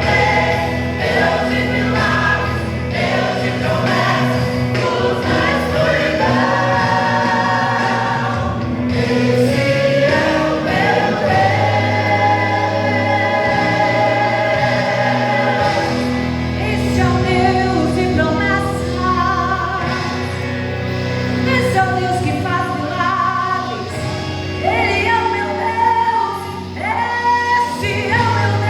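Gospel vocal group singing in harmony over an instrumental backing with a steady bass line, a Portuguese-language worship song.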